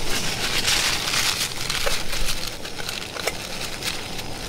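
Paper towel crinkling as a hand grips the lid of a stainless kettle-cooker pot, over crackling and clicking from water at the boil on a single gas burner.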